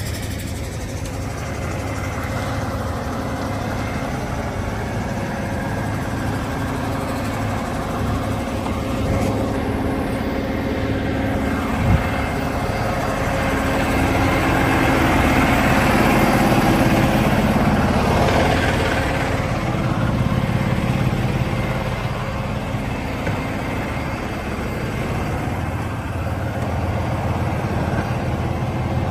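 Heavy wrecker's diesel engine running steadily, swelling louder for several seconds past the middle, with one sharp knock about twelve seconds in.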